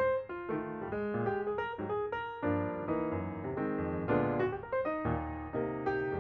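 Background piano music: a quick stream of single notes over chords.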